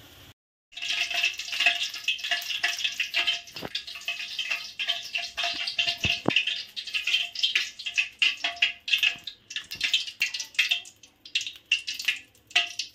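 Hot cooking oil crackling and spitting in a steel pot, a dense patter of pops that thins out near the end, as it meets water drops left in the pot.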